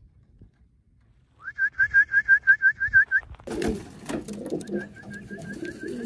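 A rapid run of about a dozen high chirps from a bird, then racing pigeons cooing low with scuffing and clicks, while a fainter run of the same chirps repeats near the end.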